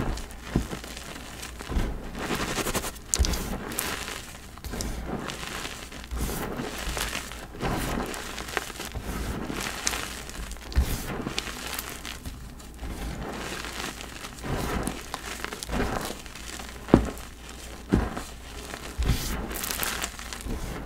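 Dyed gym chalk crunching and crumbling in a run of irregular, powdery crunches, with a few sharper cracks standing out, the loudest about two-thirds of the way through.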